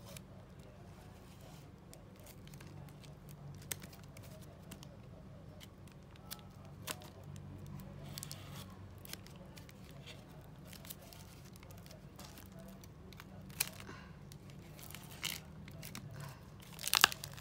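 A small corrugated cardboard mailer being handled and pried open: faint rustling and scattered sharp clicks. Near the end there is a louder quick cluster of snips as scissors cut into the cardboard.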